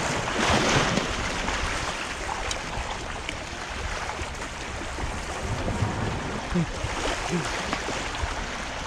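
Steady rush of sea surf washing against the shore.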